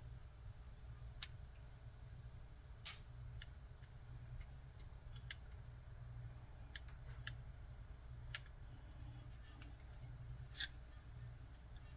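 Sparse sharp clicks and taps of small metal carburetor parts and hand tools being handled, about eight in all and irregularly spaced, over a faint steady low hum.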